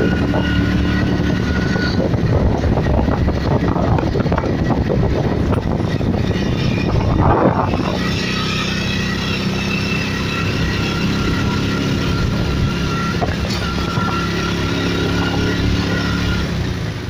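Train in motion, heard from inside as it crosses a bridge: a loud, steady rumble of wheels on rails with a few steady tones over it, and a brief louder rush about seven seconds in.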